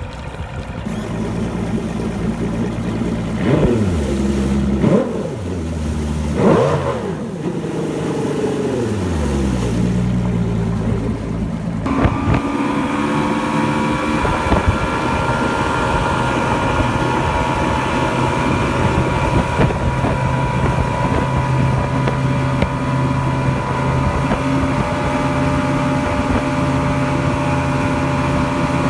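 Mercury 175 outboard motor running, revved in three quick throttle blips that rise and fall in pitch, then settling back down. From about twelve seconds in it runs steadily at a constant speed, with a higher steady whine over the engine note.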